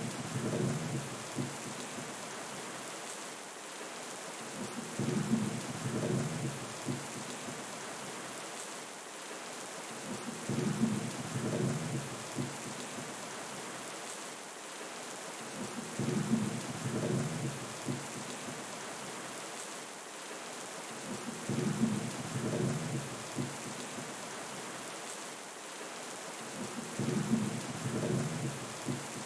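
Steady rain hiss with low rolls of thunder recurring at even intervals, about every five and a half seconds, each lasting a second or two.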